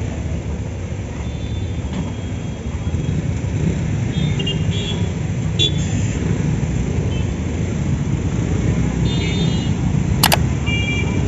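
Steady low rumble of road traffic as motorbikes, scooters and an auto-rickshaw cross the level crossing, growing a little louder a few seconds in. Brief high chirps come here and there, and a single sharp click sounds near the end.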